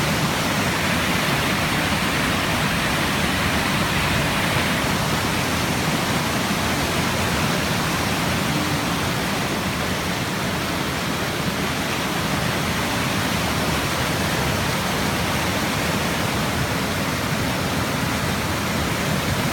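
A waterfall rushing steadily, an even noise of falling water with no breaks or changes.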